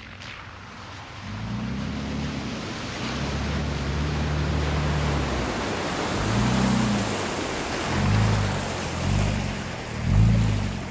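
Third-generation Toyota Tacoma's engine pulling the truck through a deep muddy water hole, with water splashing and surging around it. The engine holds steady at first, then revs up and down about once a second, loudest near the end.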